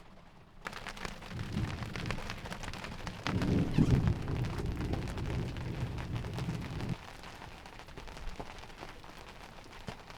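Thunder rumbling over rain falling on the sailboat: the rumble starts under a second in, is loudest around four seconds and cuts off sharply about seven seconds in, while the rain keeps up a dense spatter of small ticks.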